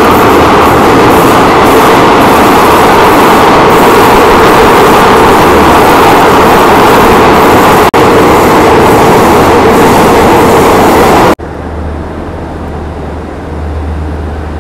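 Train running through a long rail tunnel: a loud, steady rush of wheel and rail noise that cuts out for an instant about eight seconds in. About eleven seconds in it drops suddenly to a much quieter, muffled sound with a low hum.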